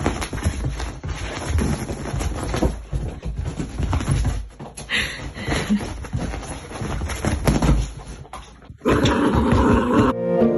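An Italian greyhound running and leaping on a bed, its paws landing in a rapid, irregular run of soft thuds. Near the end the sound cuts to something louder and fuller, and music starts just before the end.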